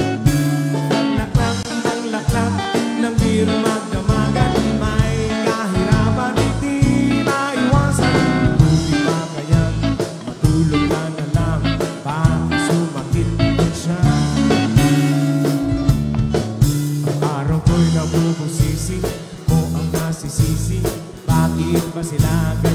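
A live band playing a pop song with drum kit, electric bass, electric guitar and keyboard, with singing over it.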